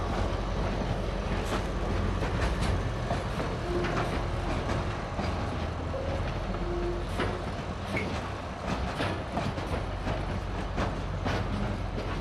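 Ballast hopper wagons rolling past, their wheels clacking over the rail joints in many irregular clicks. Under the clacking runs a low steady rumble from the pair of BB 69000 diesel-electric locomotives pushing in multiple at the rear.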